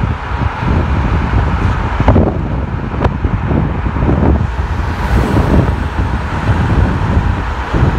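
Car driving on a city highway: steady road and engine rumble with wind buffeting the microphone. There are two short knocks, about two and three seconds in.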